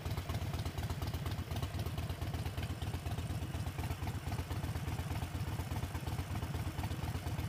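Harley-Davidson Sportster 72's 1200 cc air-cooled V-twin idling with a steady low pulsing beat while the bike waits at a stop.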